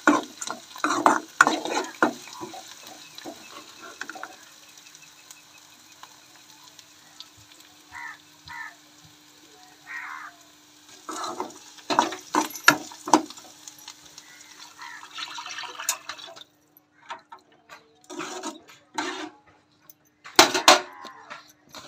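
Metal spoon scraping and knocking against an aluminium kadai while stirring fried peanuts, chickpeas, onion and green chillies, over a light sizzle. The sizzle cuts off about three-quarters of the way through, and a few more spoon knocks follow in the pan, which now holds water.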